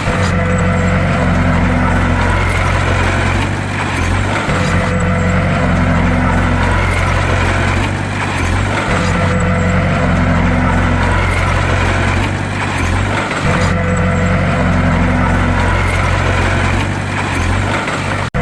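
Bulldozer's diesel engine running steadily at work, its note dipping and returning in a pattern that repeats about every four seconds.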